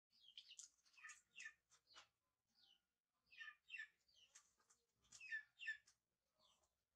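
Faint, short high-pitched chirping squeaks from a baby macaque, coming in quick pairs of falling chirps several times over.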